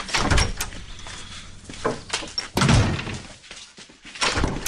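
A wooden door shutting with a thunk, followed by further sudden thuds about two and a half seconds in and again near the end.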